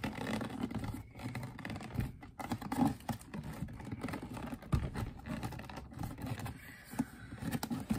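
Fingers scraping, prying and knocking at the lid of a tight-fitting cardboard Air Jordan 35 shoe box, with irregular cardboard scrapes and a few sharper knocks; the lid is stuck and hard to get open.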